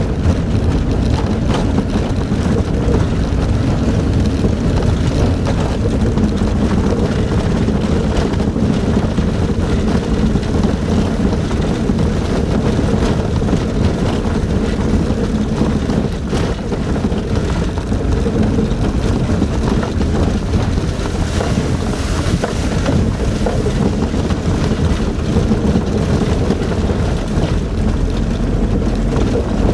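A truck driving along a dirt road, heard from inside the cab: a steady low rumble of engine and tyre noise.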